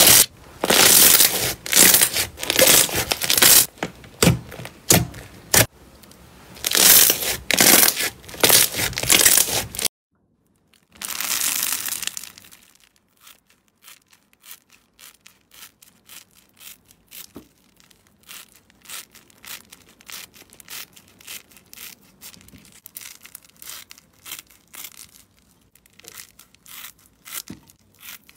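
Clear bubble-bead slime squeezed and kneaded by hand, with dense loud crackling and popping, for about the first ten seconds. After an abrupt stop and a short noisy burst, scissors snip through a soft sponge, giving much quieter rapid small crunches and snips.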